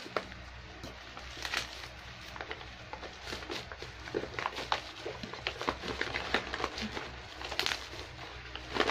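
Plastic snack packaging crinkling and crackling as it is handled, in irregular clicks and rustles, over a steady low hum.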